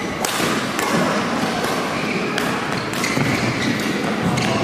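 Badminton rally: a string of sharp racket strikes on the shuttlecock at irregular intervals, with short squeaks of court shoes on the floor between about two and three and a half seconds in, all echoing in a large hall.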